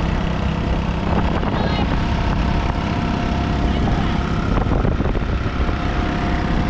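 A vehicle on the move: steady road and engine noise with a heavy low rumble, most likely wind on the microphone, unbroken throughout.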